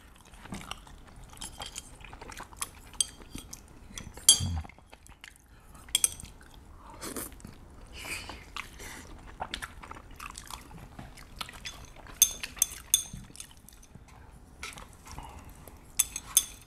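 Close-up eating sounds: two people chewing and slurping saucy noodles and rice cakes in rosé tteokbokki, with wet mouth smacks scattered throughout. There are occasional light clicks of chopsticks against dishes, and one dull thud about four and a half seconds in.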